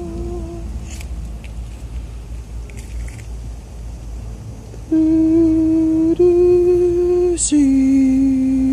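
A man humming long, steady held notes. One ends just after the start. After a pause of about four seconds he hums again, steps up slightly, then drops with a click to a lower note that he holds, over a low rumble.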